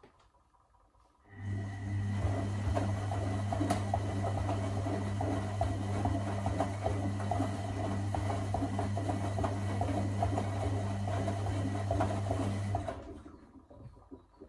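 Electra Electronic 1100 front-loading washing machine turning its drum in a wash tumble: the motor starts about a second in with a steady hum and a faint high whine, wet towels sloshing and tumbling in the drum, then it winds down and stops near the end.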